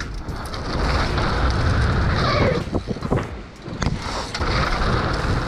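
Wind buffeting a body-worn camera's microphone while a mountain bike rolls over dirt, with a few sharp clicks and knocks.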